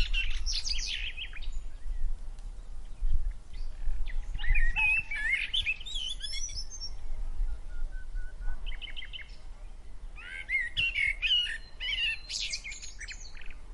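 Birds chirping and singing in quick bursts of short, high notes and trills, with gaps between the bursts, over a steady low rumble.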